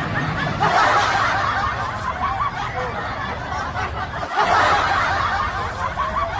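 People snickering and chuckling, with louder swells of laughter about a second in and again just after four seconds.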